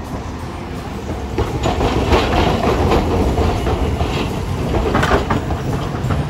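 Hiroden 800-series tram, car 801, passing close by at low speed with a rumbling, growing louder about a second and a half in. Its steel wheels clack over the rail crossings of the junction.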